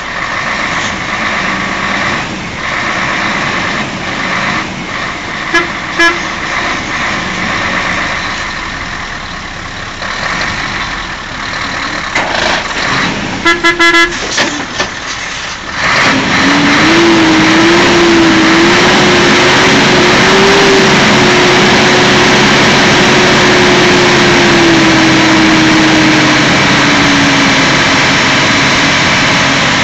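Loaded Mercedes-Benz Actros log truck's diesel engine running, with a few short truck-horn toots, once about six seconds in and then a quick series about halfway. From about halfway the engine is revved hard and held under load, its pitch climbing and wavering, then falling away near the end.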